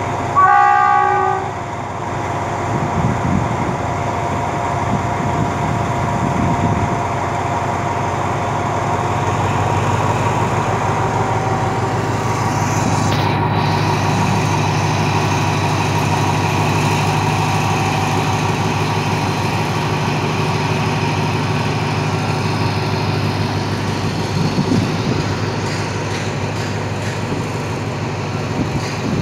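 A diesel locomotive's horn sounds once for about a second. Then the engine works steadily as the train moves off, its passenger coaches rolling past the platform.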